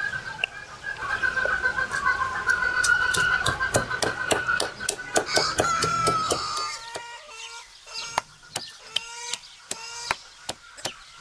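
Stone pestle pounding spices in a rough stone mortar in steady strikes, about two or three a second. Chickens call over it: one long drawn-out call for the first six seconds, then short repeated clucks.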